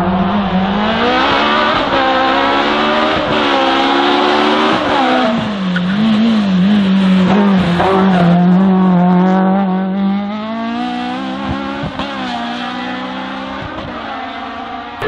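Racing car engine driven hard: its pitch climbs and drops back at gear changes a few times, wavers briefly, holds steady, then gradually fades near the end.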